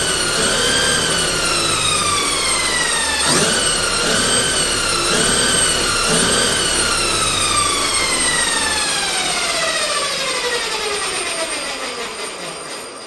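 Electric drive motor and drivetrain of a 1/5-scale RC short-course truck on 8S power, wheels spinning freely off the ground: a high whine held at speed with small wobbles, a brief dip and pick-up about three seconds in, then a long falling whine as the wheels coast down.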